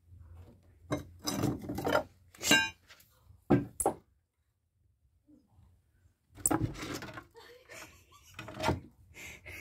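Knocking and scraping against wooden beams in several short, sharp bursts, with a stretch of silence in the middle.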